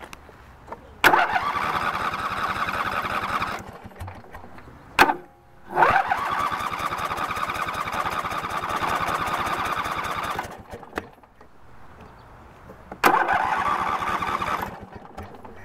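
Riding lawn tractor engine being cranked by its electric starter in three tries. Each try opens with a sharp click and runs about two to five seconds of steady whirring cranking before being cut off abruptly, without the engine settling into a run.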